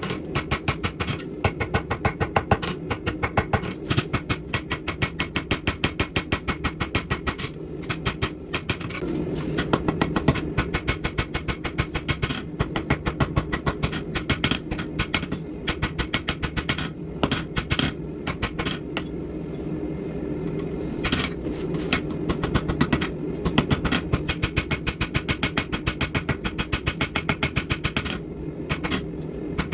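Rapid, even hammer blows on steel during forging, several strokes a second with short pauses, over a steady low hum.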